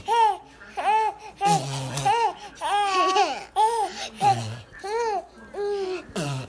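Baby belly laughing in short, high-pitched bursts that rise and fall, about one to two a second. Three lower-pitched short sounds come in between.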